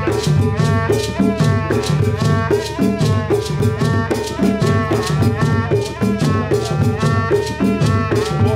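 Live traditional Tiv dance music: several hand drums and shaken rattles keep a fast, driving beat under a continuous, repeating melody of high pitched notes.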